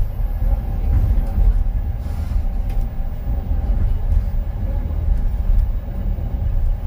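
Cabin noise of the Wolmi Sea Train tourist monorail running along its elevated guideway: a steady low rumble with a faint steady whine and a few light clicks.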